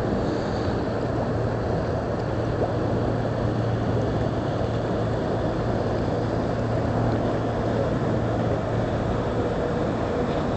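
Boat engine running with a steady low drone over a haze of water and wind noise; a faint higher tone joins in near the end.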